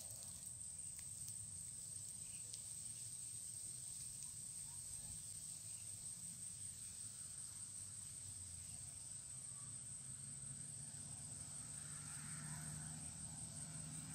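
Steady high-pitched insect drone, with a few faint small ticks as the wire snare is worked into the bamboo pole.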